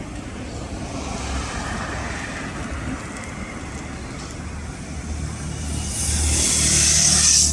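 Road traffic: a steady low rumble of passing vehicles, with one vehicle passing close from about six seconds in, its hiss the loudest part.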